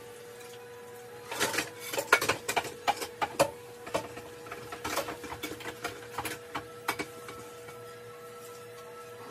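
Dishes and utensils clattering in a kitchen sink as they are washed: an uneven run of clinks and knocks starting about a second in and lasting about six seconds, over a steady faint tone.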